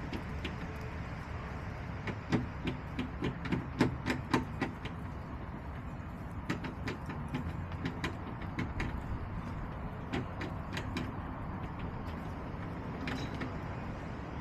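Chickens in a coop, with bursts of quick sharp taps, loudest about two to five seconds in and returning a few times after, over a steady low background rumble.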